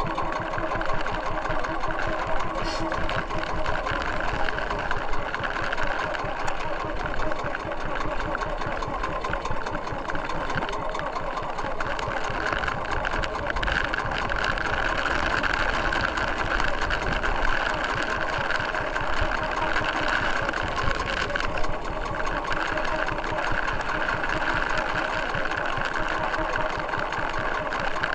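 Small engine of a motorized outrigger fishing boat running steadily while under way.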